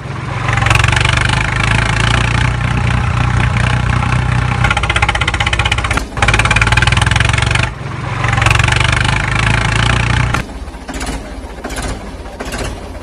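Tractor engine sound running steadily and loudly, broken off by two short gaps about six and eight seconds in. About ten seconds in it drops to a quieter, uneven idle with repeated knocks.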